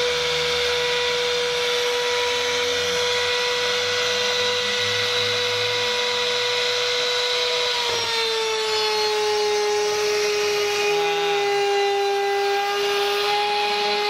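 LCHI 6090 CNC router's spindle whining steadily as its bit cuts mahogany in a single full-depth pass, with the rasp of the cut under the whine. About eight seconds in the whine steps a little lower in pitch and holds there.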